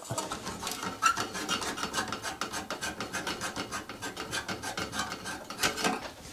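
Light bulb being unscrewed from the bathroom fan's light socket: its threaded base grates in the socket in a quick, even run of short rasping scrapes, with one louder scrape near the end.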